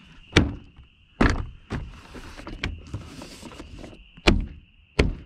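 A series of sharp knocks and clicks, about six spread irregularly, as plastic door trim parts are pushed and fitted into place inside a car door.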